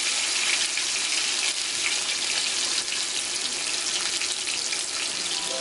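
Diced tomatoes frying in hot oil in a pan: a steady sizzling hiss.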